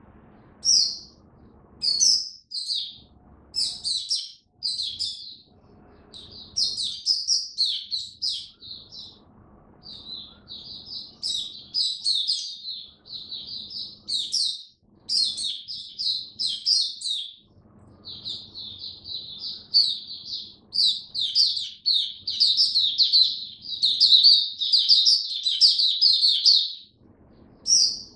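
Caged white-eye singing. A few separate high chirps come first, then from about six seconds in a long, rapid, unbroken run of high warbling notes that stops shortly before the end.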